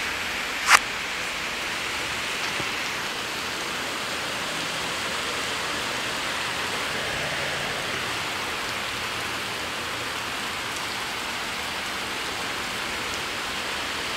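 Heavy rain falling, a dense steady hiss. One sharp knock sounds under a second in.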